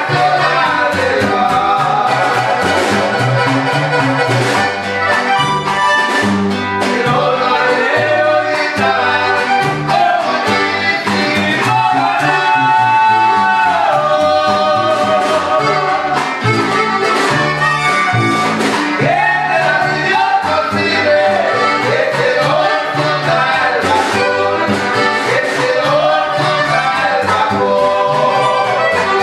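A small Mexican regional band playing live: button accordion, upright bass, guitar and snare drum, with a man singing over them.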